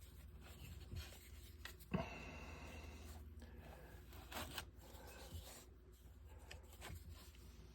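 Faint scraping and small clicks of a plastic spatula spreading plastic wood filler onto a hull, with a sharper tap about two seconds in.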